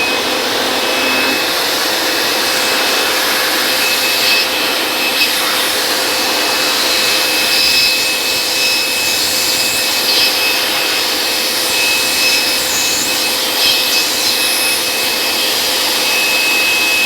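Handheld electric air blower running steadily: a high, even motor whine over rushing air as it blows sanding dust off a servo stabilizer's contacts.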